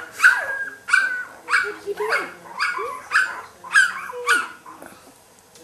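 Newborn golden retriever puppy crying in a run of short, high squeals that fall in pitch, about two a second, stopping a second before the end.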